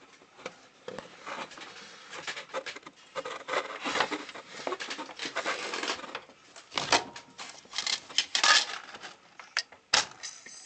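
Sony CDP-M19 CD transport with its KSS-210A pickup running with the disc spinning: a dense, irregular clicking and rattling from the mechanism, loudest in the middle and near the end.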